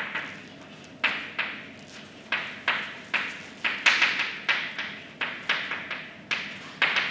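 Chalk writing on a blackboard: a quick, irregular run of short taps and scratching strokes, about three a second.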